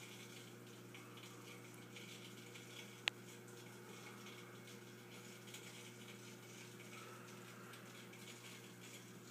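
Faint, steady low hum of an aquarium pump with light water bubbling, and a single sharp click about three seconds in.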